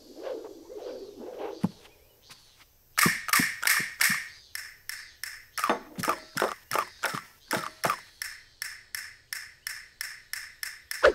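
Soft pattering at first, then, from about three seconds in, an even, rhythmic run of sharp taps, about three or four a second.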